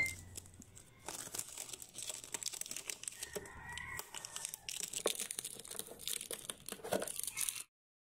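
Crinkling and small clicks of hands handling a clear plastic box of foil-wrapped Ferrero Rocher chocolates. The sound stops abruptly near the end.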